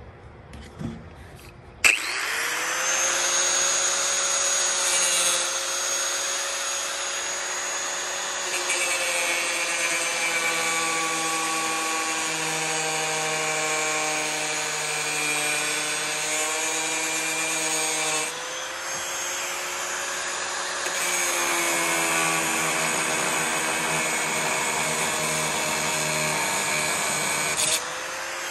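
Corded angle grinder starting about two seconds in and cutting through a steel lock: a steady motor whine with harsh cutting noise. It dips briefly about two-thirds of the way through, then carries on.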